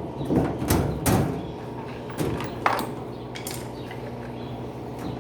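Electrolux LTE12 top-load washing machine running with a steady low hum, with several sharp clicks and knocks in the first few seconds as screws are fitted to its back cover.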